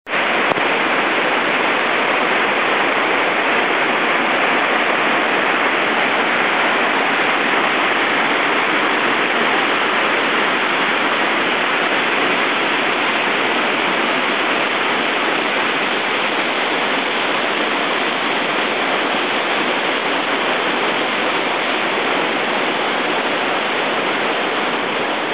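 Whitewater of a steep class 5+ river rapid pouring through a narrow rock chute: a loud, steady rush of water.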